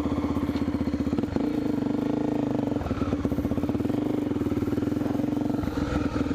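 Dirt bike engine running steadily under throttle, its note briefly breaking and changing a few times.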